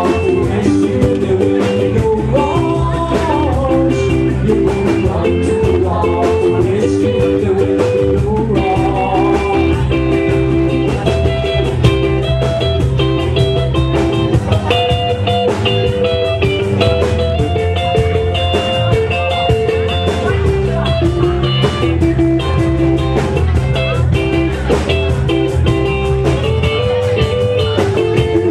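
Loud dance music playing steadily, with guitar melody lines over a bass-heavy beat.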